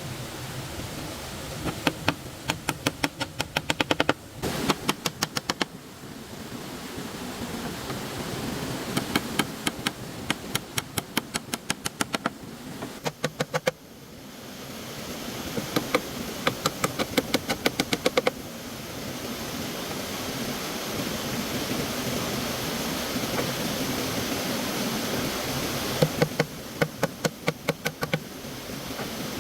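Quick runs of sharp knocks, about four strokes a second, like a blade or tool striking bamboo or wood, repeated in several bursts over a steady rush of stream water.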